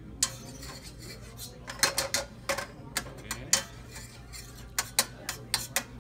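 Metal utensils clinking and scraping against a skillet on a tableside gas burner while butter is worked in the pan: a string of sharp, irregular clinks.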